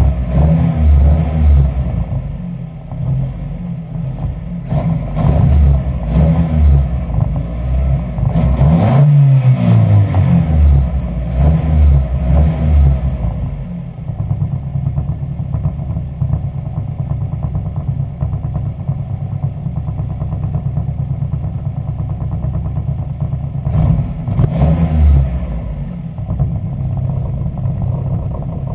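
Ford Zetec four-cylinder engine in a Westfield kit car, revved up and down several times for the first half, then settling to a steady idle with one more brief rev near the end. The engine is running with a misfire.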